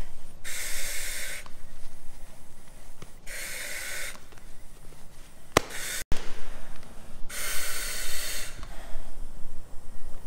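Firefighter breathing on an SCBA: the facepiece's demand regulator hisses with each inhalation, three breaths about three to four seconds apart. A sharp click and a brief dropout come a little past the middle.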